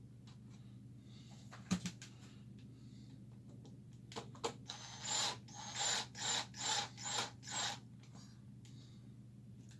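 Hand tool working screws into the amplifier chassis: a few sharp clicks, then about six short rasping ratchet-like strokes in a quick even run, over a steady low hum.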